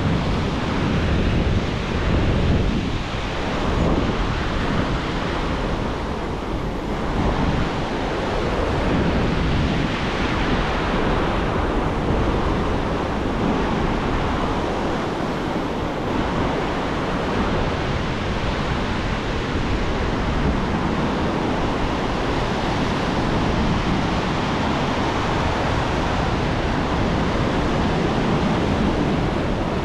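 Ocean surf washing up the sand in a steady rushing noise, with wind buffeting the microphone.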